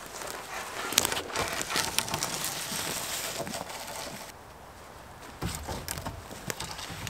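Footsteps in rubber boots on forest-floor litter, with dry twigs snapping and crackling underfoot among rustling needles and leaves. The cracks are sharpest in the first half, with a few more knocks and rustles near the end as a dead birch branch is handled.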